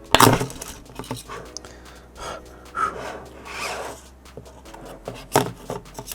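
Hands and small tools working on a compact camera's plastic body and parts: scattered clicks and scrapes, with a sharp knock just after the start and another near the end.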